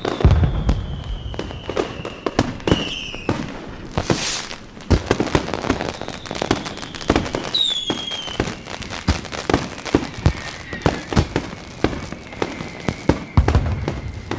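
Fireworks and firecrackers going off in a rapid, irregular series of sharp bangs and pops. Several long whistling tones fall slowly in pitch over a few seconds each, and there is a short hissing burst about four seconds in.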